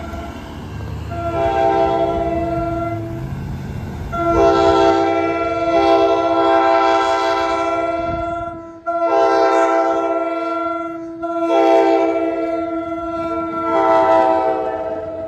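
Multi-note air horn of an NJ Transit ALP-45DP locomotive sounding a run of long, loud blasts, several back to back with only brief breaks, as the train comes up to a road grade crossing. A low train rumble sits underneath at the start.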